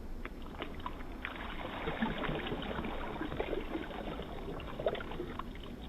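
Water being dumped out of a small pool, pouring and splashing steadily.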